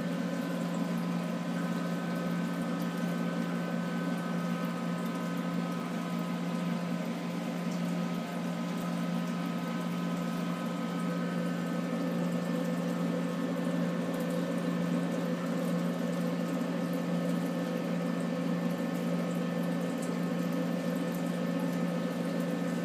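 Steady hum of a touch tank's circulating water pump, with the even wash of moving water, unchanging throughout.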